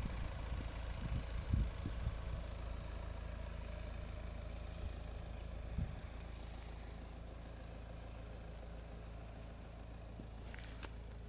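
DS 7 SUV engine idling steadily, a low, even hum. There are a few soft knocks between one and two seconds in and faint clicks near the end.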